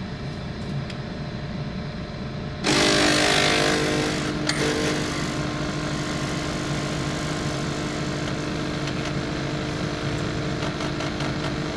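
Small coffee machine brewing into a mug: a low hum, then about two and a half seconds in the pump starts with a loud buzzing rush that eases after a couple of seconds and keeps running steadily.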